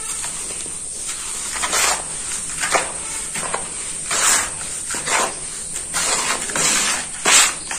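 Hands scooping and crumbling dry sand-and-cement powder in a metal pan, letting handfuls pour back: a string of irregular gritty rustles and pours, the loudest near the end.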